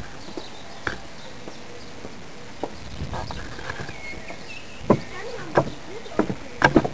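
Irregular sharp knocks and slaps at the hull of a small radio-controlled model boat lying against a concrete quay wall, several in quick succession from about five seconds in, over a faint steady hiss.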